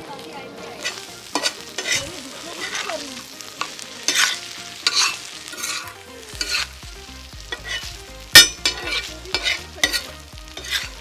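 Minced mutton and liver frying in freshly added butter on a large black iron tawa, sizzling steadily, while a metal spatula scrapes and stirs it across the pan in irregular strokes. The loudest scrape comes about three quarters of the way through.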